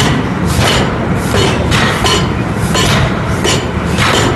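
Pneumatic forging hammer striking a red-hot flange forging in quick repeated blows, about two a second, each a sharp metallic clank over a continuous low rumble from the machine.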